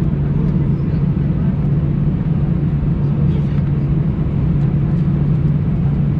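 Steady, loud low mechanical drone with a constant deep hum that does not change in pitch, and a few faint ticks.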